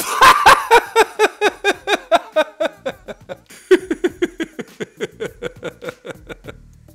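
A man's hearty, uncontrollable laughter in quick rhythmic 'ha-ha' pulses, about five a second, in two long bouts with a short catch of breath about three seconds in, fading away shortly before the end.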